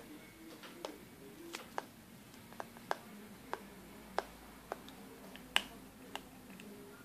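About ten sharp, irregularly spaced clicks, the loudest about five and a half seconds in, over a faint steady room hum.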